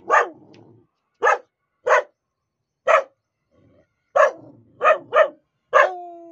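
Young Siberian husky barking, about eight short, sharp barks with a pause in the middle. The last bark runs on into a drawn-out, slightly falling note.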